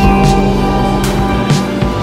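Background music with steady sustained notes and a few percussive hits.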